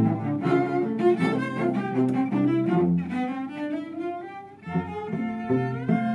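Music played by a cello ensemble: several bowed cellos in a flowing melodic passage, with more than one part sounding at once.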